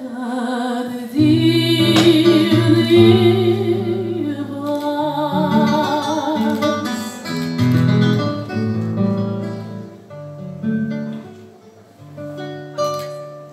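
Woman singing a Russian romance in waltz time with acoustic guitar accompaniment. Her held notes waver, and in the second half the guitar plays on, with sparse plucked notes and closing chords as the song ends.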